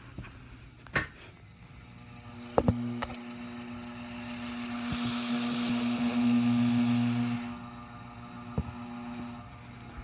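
Harbor Breeze Whitestar ceiling fan motor running with no blades fitted, a steady electric hum that grows stronger about two and a half seconds in. Several sharp clicks, the loudest a double click at that point, and a rushing noise that swells from about four seconds and cuts off suddenly near seven and a half seconds.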